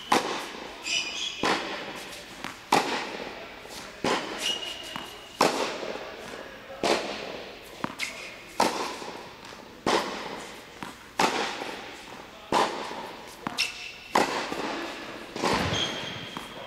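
Tennis balls struck with a racket and bouncing on an indoor hard court in a steady rally, a sharp pop about every second and a half, echoing in the hall. Short squeaks of tennis shoes on the court come between some of the hits.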